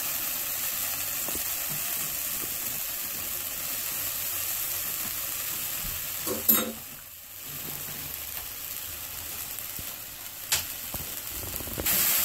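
Spring onions, spices and freshly added soy sauce sizzling in hot oil in a frying pan, a steady hiss. A sharp clack comes about six and a half seconds in and a lighter one near ten and a half. Near the end it grows louder as a spoon starts stirring the mixture in the pan.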